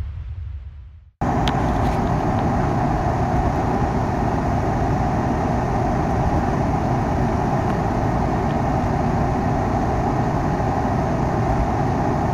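A low rumble fades out, then after a sudden cut about a second in, the steady road and engine noise of a truck driving, heard from inside the cab.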